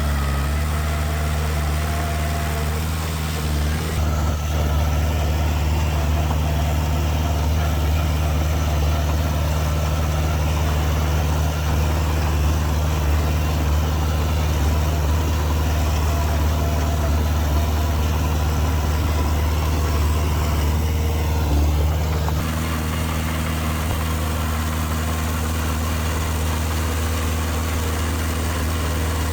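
Diesel engine of heavy earthmoving machinery running steadily with a deep hum. It grows a little louder about four seconds in, then eases back about twenty-two seconds in.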